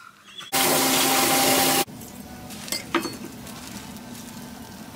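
A loud burst of water spraying from a hose, about a second and a half long, cut off abruptly. It is followed by a few faint clicks of a knife and hands working on a plastic cutting board.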